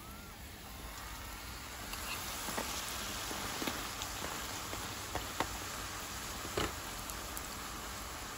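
Fry bread dough frying in hot grease in a cast-iron skillet: a steady sizzle that grows louder about two seconds in, with a few sharp pops of spattering oil.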